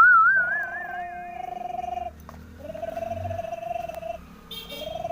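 Electronic sound effects from a battery-powered toy: a loud warbling tone that rises at the start, then a pulsing buzzy tone that plays three times with short breaks between.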